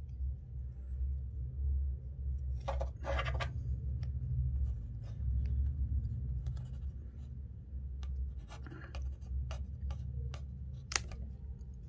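Fingers handling small rubber damper balls and twine: scattered clicks, rubbing and scratching, heaviest about three seconds in, over a steady low hum.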